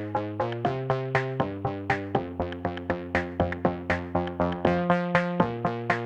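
Background electronic music: synthesizer chords and plucked notes over a steady beat, about four notes a second.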